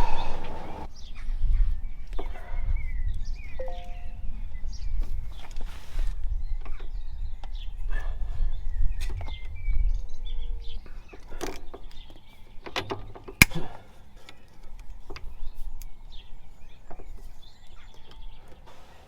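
Scattered light metallic clicks and taps of hand tools working a split pin out of a tractor's four-wheel-drive shaft, over a low rumble in the first half, with birds chirping.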